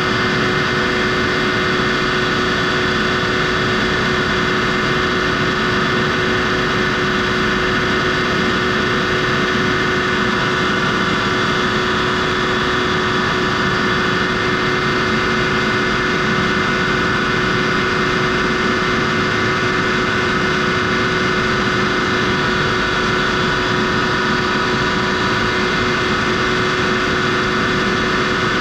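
Eaton 20 hp air-cooled rotary screw air compressor running steadily, a constant machine drone with a steady whine and no change in speed.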